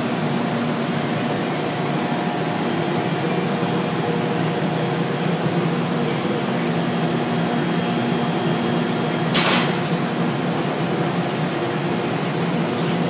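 Tube FM transmitter running: a steady blower and hum with several steady tones. About nine seconds in there is a single brief clunk as the plate high voltage comes on.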